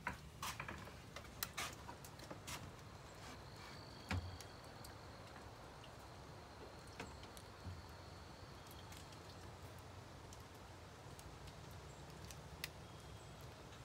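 Steady light rain falling, heard as an even hiss. There are a few sharp clicks and knocks in the first couple of seconds and one more about four seconds in.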